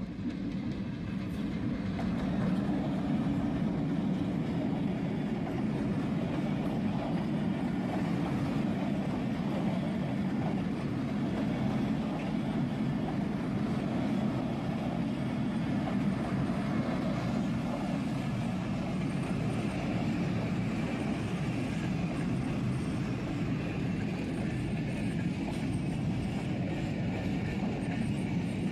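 Passenger train double-headed by two diesel locomotives running through at speed. The sound builds about two seconds in as the locomotives pass, then the coaches roll by with a steady rumble of wheels on rail.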